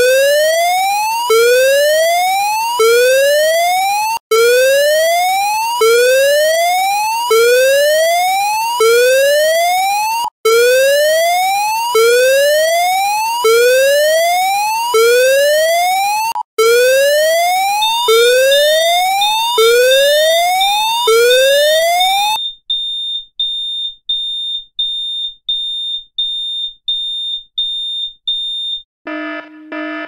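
Fire alarm sounding a repeated rising whoop tone, each sweep lasting about a second and a half. About eighteen seconds in, a high-pitched beeping joins; the whoops stop a few seconds later, leaving the beeps alone at about two a second.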